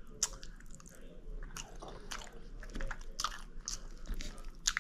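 A person chewing and biting food close to the microphone, with irregular mouth clicks and smacks, a few each second.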